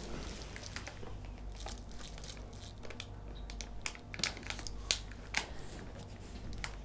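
Plastic crisp packet crinkling as it is handled and opened slowly and carefully: scattered soft crackles, with a few sharper crinkles a little past the middle.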